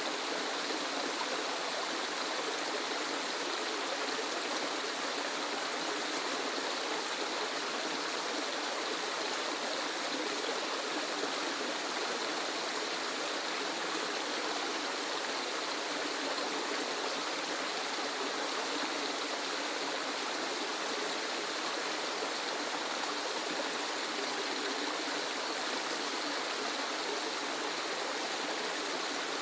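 Waterfall: a steady, even rush of falling water, bright and hissy with little deep rumble, unchanging throughout.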